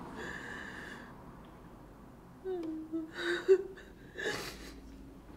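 A woman crying: a wavering, whimpering sob a little past halfway, broken by sharp gasping breaths.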